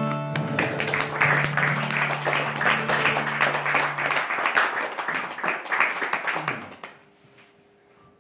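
Small audience clapping for about six seconds, with the last chord of an acoustic guitar ringing under it for the first few seconds; the clapping dies away near the end.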